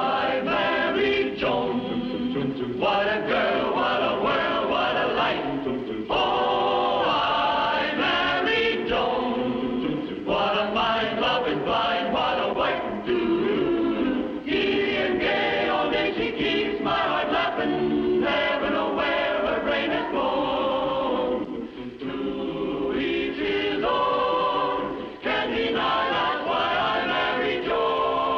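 A choir singing a television theme song with musical backing, in sung phrases with short breaks between them.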